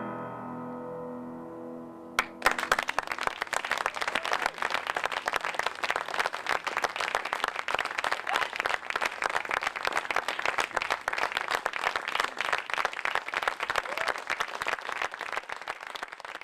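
A last piano chord rings and fades; about two seconds in, an audience starts applauding, many hands clapping densely and steadily.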